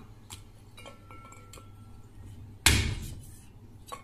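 A few light clicks and clinks as garlic cloves are handled in a stainless-steel bowl and set on a wooden chopping block. About two-thirds through comes one heavy thud that dies away quickly: the flat of a cleaver smashing a garlic clove on the block.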